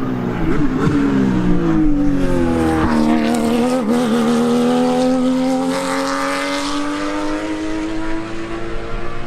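Racing car engine on track. Its pitch drops about three seconds in, then climbs steadily for several seconds as it accelerates.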